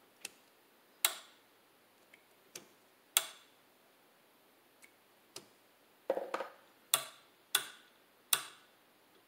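Sharp metallic clicks from a cap-and-ball percussion revolver's action being worked by hand, about a dozen at uneven spacing. They come closer together in the second half, including a quick double click a little past the middle.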